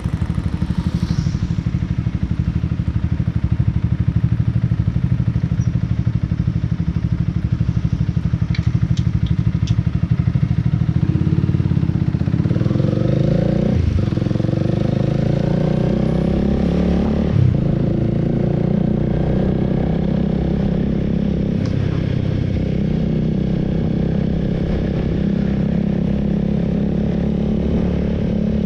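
Honda Rebel 300's parallel-twin engine running while riding, heard from on the bike. It accelerates in the second half, with two gear changes about halfway through where the engine note rises and then drops.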